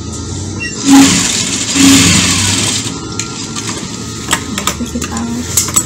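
Sewing machine stitching in two runs, a short one about a second in and a longer one of about a second just after, running a long gathering stitch along a sleeve. A few light clicks follow.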